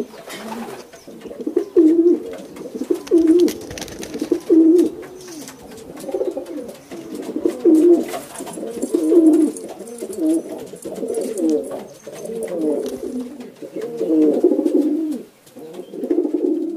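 Racing pigeons cooing over and over, a low coo about every second or so.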